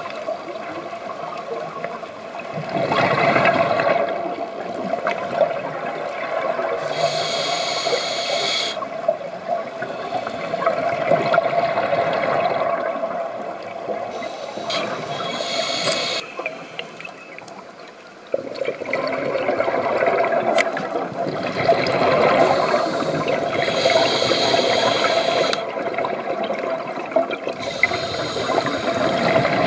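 Scuba diver breathing through a regulator underwater: a short hissing inhale alternates every several seconds with a longer, louder gurgling rush of exhaled bubbles. A steady faint hum runs underneath.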